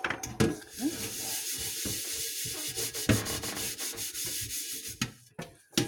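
Scouring disc with cleaning paste scrubbing a soot-blackened saucepan: a steady rasping rub with a few knocks, stopping near the end.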